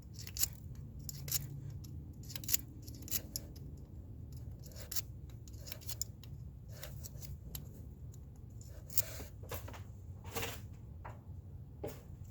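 Short, sharp metallic scrapes and clicks from hand tools working in metal, irregular, roughly one a second.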